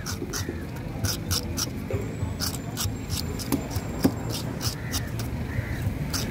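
A wooden scaler block scraping the scales off a fish in quick, rasping strokes, about three a second.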